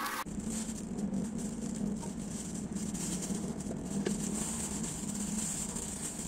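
Small kitchen knife cutting a steamed chicken loaf into cubes on a plastic cutting board: a few soft taps of the blade on the board over a steady background hum and hiss.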